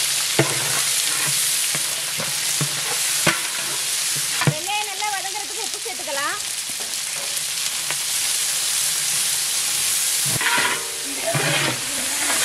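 Sliced onions frying in hot oil with whole spices in a large metal pot, a steady loud sizzle. The onions are stirred with a long metal ladle that knocks against the pot a few times.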